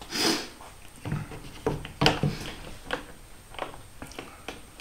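Handling noise as a circular saw is picked up and set on the clamped wooden board before the cut: a short rustle at the start, then about eight light knocks and clunks of wood and plastic. The saw's motor is not running.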